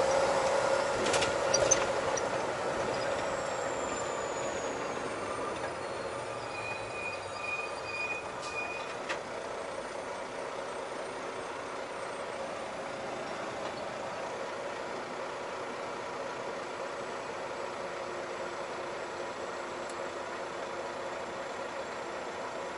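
Semi-truck diesel engine heard inside the cab, running down as the truck slows to a stop, then idling steadily. A few sharp clicks come about a second in, and a short run of four or five even beeps around a third of the way through.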